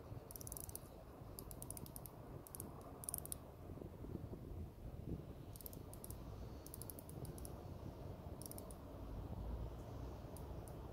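Rotating bezel of a Winner W042602 automatic dive watch being turned by hand, giving faint, rapid runs of small detent clicks in several short bursts with pauses between them.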